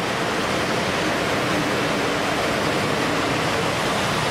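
Walt Disney World monorail train passing directly overhead on its concrete beam: a steady, loud rushing of its rubber tyres and drive, with a faint low hum underneath.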